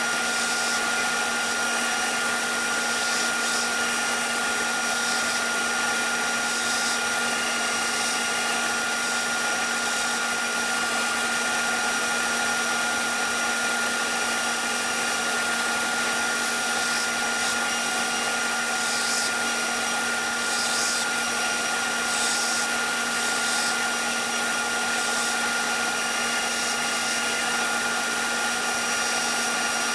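An electric motor running steadily, a constant hum with a high whine over a wash of hiss, with brief faint scratchy patches coming and going higher up.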